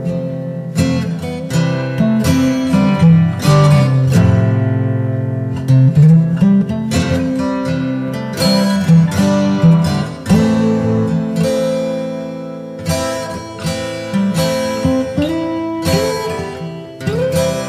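Acoustic guitar music: plucked notes and strummed chords, each ringing and dying away.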